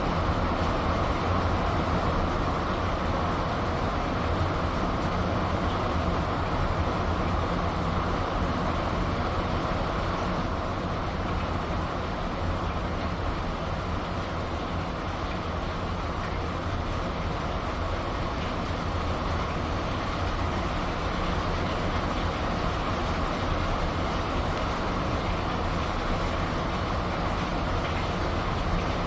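Steady rain falling, over the even low hum of the ship's engines.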